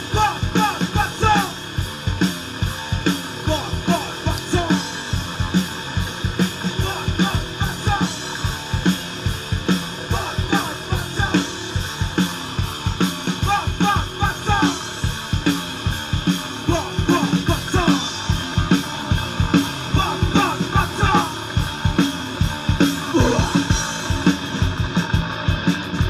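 Rock band playing live: a drum kit keeps a steady beat under electric guitar.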